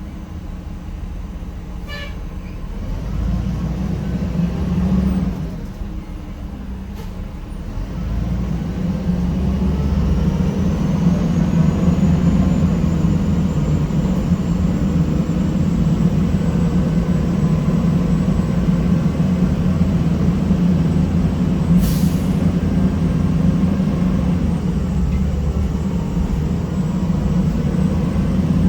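Cummins ISM straight-six diesel of a 1993 Gillig Phantom transit bus, heard from inside the bus, running with the distinctive humming sound this repowered unit makes. It gets louder about eight to ten seconds in as the bus pulls away, then holds steady, with a brief sharp sound about two-thirds of the way through.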